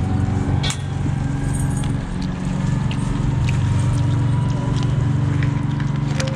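A motor vehicle engine running steadily, a low even hum, with a few light clicks.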